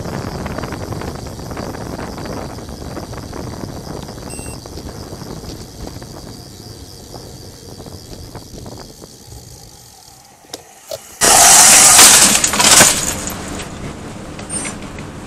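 Wind and road noise while riding, then a crash: two sharp knocks about ten seconds in, followed by about two seconds of very loud noise as the rider and vehicle go down onto the pavement.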